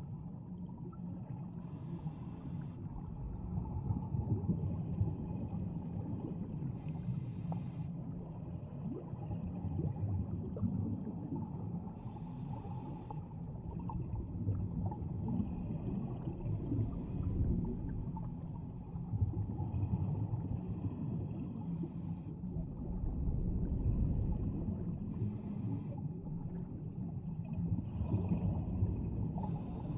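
Underwater sound of a scuba diver breathing on a regulator: a burst of exhaled bubbles about every five seconds over a steady low underwater rumble.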